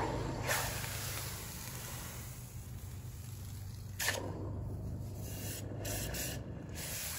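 Hot aluminium welding square casting plunged into a bucket of water to quench it: a hissing sizzle that fades over about a second, then a second burst of hissing about four seconds in that dies away again. A steady low hum runs underneath.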